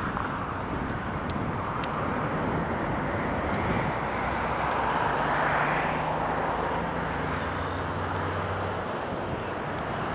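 Jet airliner engine noise, a steady rushing roar that swells to its loudest about six seconds in and then eases off.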